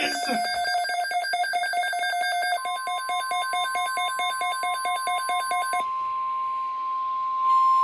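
An electronic alarm beeping rapidly, several short beeps a second, stops about six seconds in. A steady single alert tone of about 1 kHz, the NOAA Weather Radio 1050 Hz warning tone that comes before a National Weather Service statement, joins it between two and three seconds in and keeps sounding.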